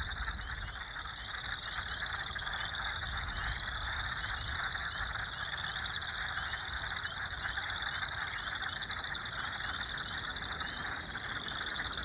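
A steady frog chorus at a spring pond. Spring peepers give high-pitched, repeated peeping. Chorus frogs give a trill that sounds like running a finger down a comb. Wood frogs add lower quacking calls.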